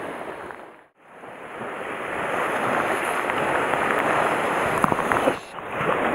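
Sea surf washing against rocks: a steady rushing wash of waves. It drops out almost completely about a second in, then swells back, with a few light clicks near the end.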